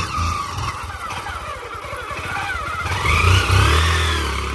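Small street motorcycle engine revving under throttle while its rear wheel spins in loose sand, getting louder toward its peak about three seconds in.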